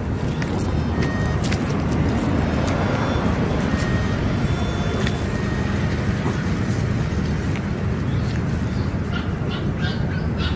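Steady low rumble of road traffic from passing vehicles.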